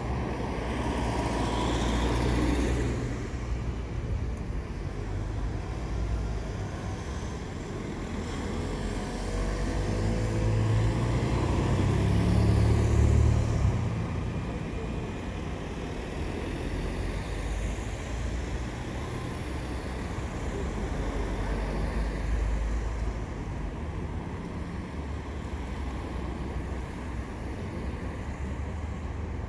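Riding noise from an electric scooter: wind buffeting the microphone over road and traffic noise, swelling louder for a few seconds about ten seconds in.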